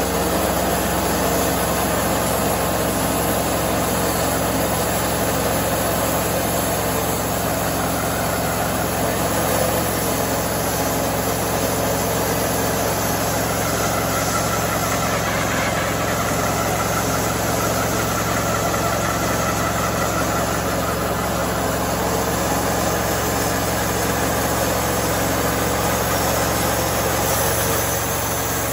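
Wood-Mizer portable band sawmill running steadily under load, its engine driving the band blade as it cuts lengthwise through a squared white oak log.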